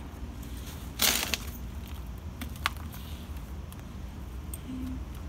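Gloved hands pressing and packing potting soil around a plant's base in a pot: a short rustle about a second in, the loudest sound, and a sharp click shortly before three seconds in, over a steady low hum.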